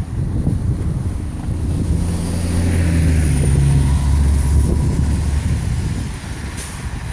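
A heavy engine running with a low rumble, growing louder about two seconds in and fading again near the end, like a large vehicle passing.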